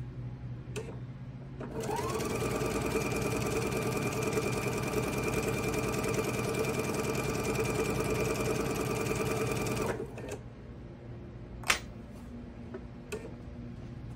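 Electric sewing machine stitching a straight seam. About two seconds in the motor whirs up to speed, runs steadily for about eight seconds, then stops. A single sharp click comes near the end, with a couple of fainter clicks around it.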